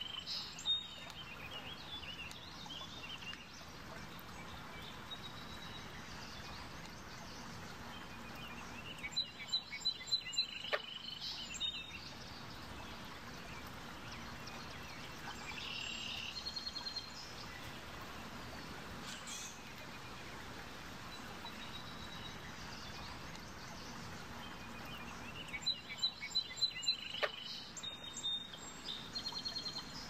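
A songbird in a marsh sings short bursts of rapid high notes three times, at the start, about ten seconds in and near the end, over a steady outdoor hiss.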